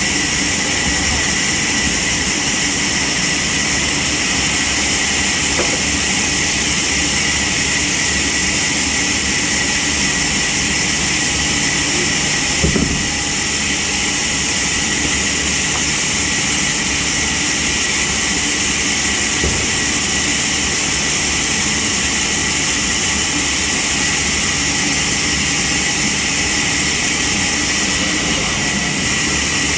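Sawmill machinery running steadily: a constant loud mechanical noise with a high steady whine, and a brief knock about halfway through.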